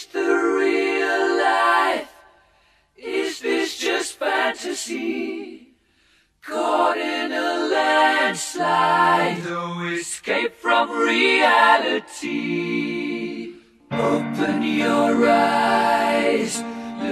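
A small mixed group of voices singing a cappella in harmony, in short phrases with brief pauses between them. A low bass part comes in under the melody about halfway through.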